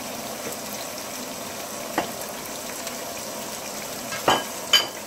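Diced onions sizzling in hot oil in a pot, a steady hiss. A sharp click comes about two seconds in and two louder knocks near the end.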